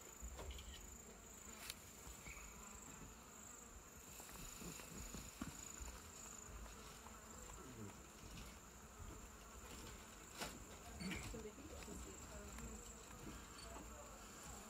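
Faint, steady high-pitched insect drone, with a few soft ticks about two seconds in and again near the ten-second mark.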